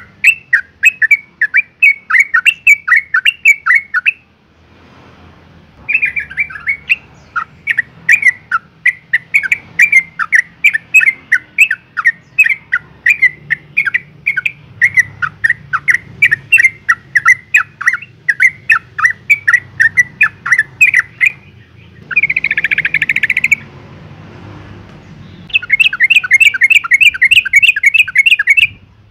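Yellow-vented bulbul calling in long runs of quick chattering notes, with a short pause early on and a brief buzzy trill before a final fast run. The uploader presents it as a female in breeding condition calling a male.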